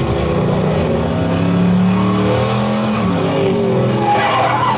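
Race car engines from a film's racing scene, played back over a home theater surround system: several engines revving, their pitch rising and falling as the cars race, with a higher rising engine note near the end.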